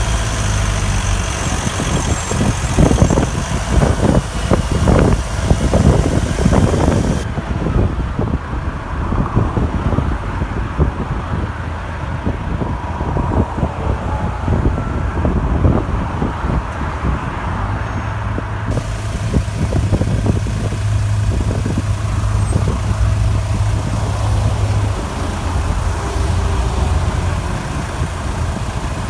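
Opel Frontera B 2.2 DTI four-cylinder turbodiesel idling, with the strange intermittent squeak that shows up mostly at idle. A run of louder irregular strokes comes between about two and seven seconds in.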